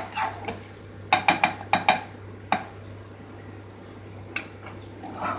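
Metal ladle stirring sambar in a metal pressure cooker pot. It clinks against the pot several times in quick succession about a second in, then a couple of single clinks, over a steady low hum.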